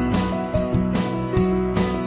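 Background music with a strummed acoustic guitar and a steady beat.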